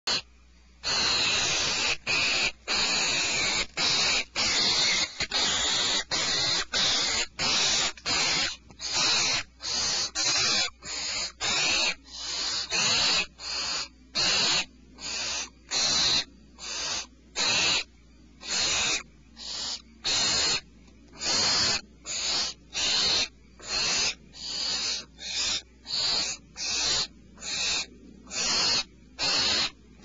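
Barn owl owlet giving its rasping, hissing 'snore' call over and over, about one and a half calls a second, nearly back to back at first. This is the typical food-begging call of a barn owl nestling.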